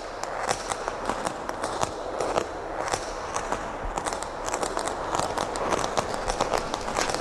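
Fire burning, with irregular sharp crackles and pops over a steady rushing noise.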